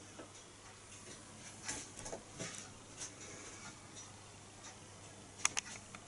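Small Stirling engine with a vertical crankshaft and brass gears running, with light, irregular ticking from its gears and crank linkage. A sharper pair of clicks comes near the end.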